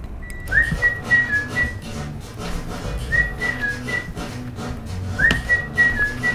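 A whistled tune in three short phrases, each starting with an upward swoop into a high note and then a few short steady notes, over a light rhythmic musical backing.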